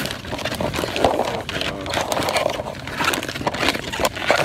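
Plastic packaging of supermarket chickens crinkling and crackling as it is handled, in irregular clicks and rustles.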